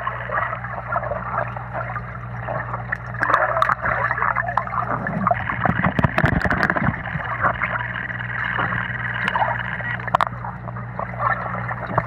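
Bubbling, gurgling water full of small clicks over a steady low hum, as heard with the microphone underwater in a swimming pool.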